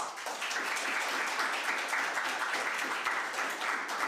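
Audience applauding steadily, dense clapping of many hands that starts suddenly at the close of a speech.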